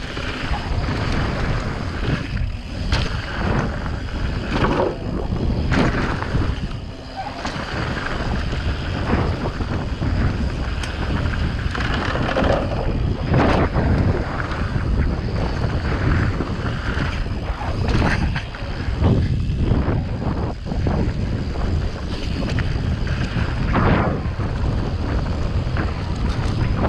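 Wind rushing over the camera microphone of a mountain bike riding fast down a dirt trail, with rolling tyre noise on dirt and gravel. Scattered knocks and rattles come from the bike over bumps.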